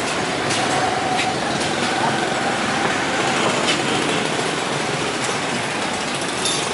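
Steady street noise with a vehicle engine running, and a few light clinks of a metal spoon against a ceramic bowl.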